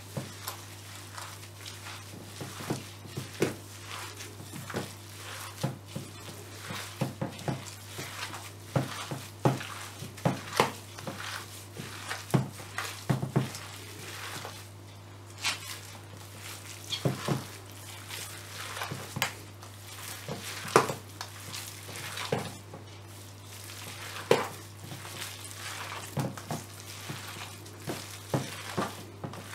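Gloved hands kneading and squeezing wet raw chicken mince mixed with chopped herbs and spices in a stainless steel bowl: irregular squelching and crackling of plastic gloves, several times a second, over a steady low hum.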